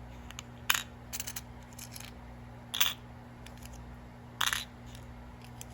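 Small metal jewellery charms being handled, clinking against each other and the table in a few short, sharp clicks and jingles, with the loudest about 3 and 4.5 seconds in.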